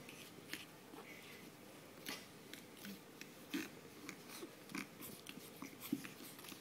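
Pug puppies play-fighting and nibbling at each other: irregular soft clicks and snaps of small mouths biting and chewing, with a few short low grunts.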